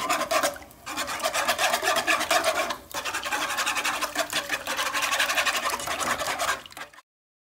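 A utensil scraping rapidly against a nonstick pan as raw eggs are beaten and scrambled in it, many quick strokes a second with two brief pauses, stopping abruptly near the end.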